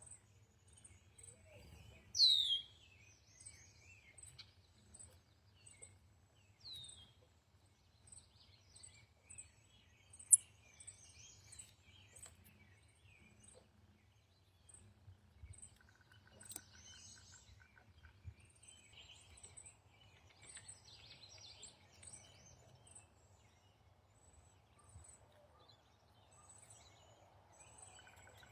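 Wild birds singing and calling: a loud, quick downward-sliding whistle twice, about 2 and 7 seconds in, over a steady run of very high short ticks about twice a second and scattered softer chirps. A single sharp click stands out about ten seconds in.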